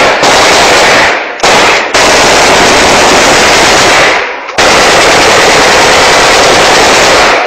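Celebratory automatic gunfire: long bursts of rapid shots, very loud, broken by brief pauses about a second in, near two seconds and past four seconds.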